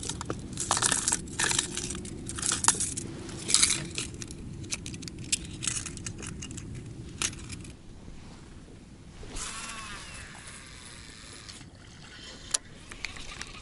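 Clicking and rattling of a plastic tackle box and the metal hooks and rings of a large swimbait as it is taken out and clipped on by hand. About nine seconds in comes a brief whirring hiss, the line running off a baitcasting reel on the cast, and a sharp click follows near the end.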